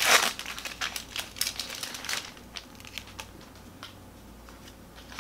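Pokémon booster pack being opened by hand, its foil wrapper crinkling: a loud burst of crackles at the start, then scattered crinkles that thin out after about three seconds.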